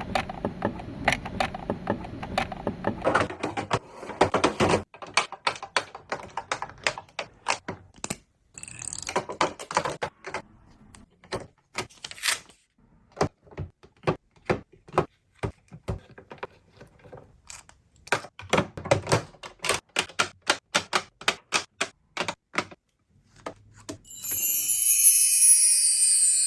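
Many light clicks and taps of small plastic miniature toy food items being picked up and set down while they are arranged, at an uneven pace with short pauses. Near the end a bright chime of several high tones starts ringing.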